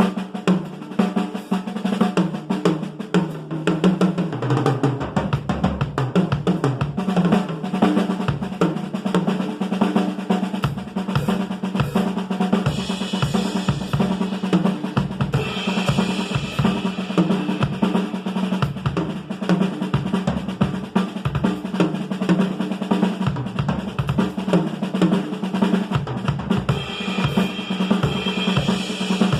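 Pearl Export EXL acoustic drum kit played continuously: fast snare and tom strokes over bass drum, with the toms stepping down in pitch in the first few seconds. Cymbals ring out a few times, around the middle and near the end.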